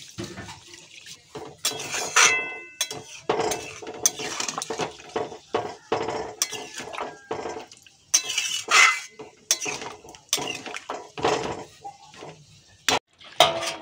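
Metal spatula scraping and clinking irregularly against a kadai while a potato and taro curry, with water just added, is stirred, with now and then a brief metallic ring.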